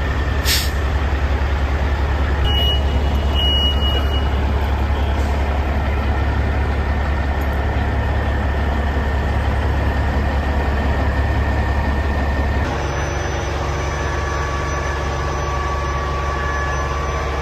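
A truck engine running with a steady low rumble. Two short high beeps sound about three seconds in, and the overall sound steps down slightly about 13 seconds in.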